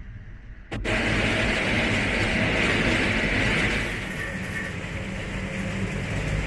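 A small cable-car cabin riding along its steel cable: a steady rolling, rattling noise over a constant low hum. The noise drops out for a moment at the very start and eases a little about four seconds in.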